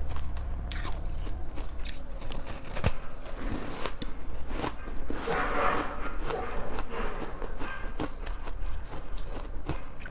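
Ice being bitten close to the microphone: a run of irregular sharp crunches and cracks, busiest about halfway through.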